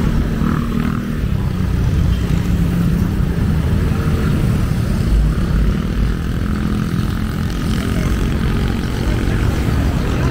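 Road traffic: a steady, fairly loud low drone of vehicle engines running on the street.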